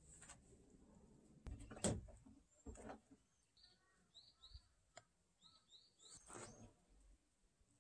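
Faint, quiet background with a few short, high bird chirps in two quick groups of three about halfway through. A single sharp knock about two seconds in is the loudest sound.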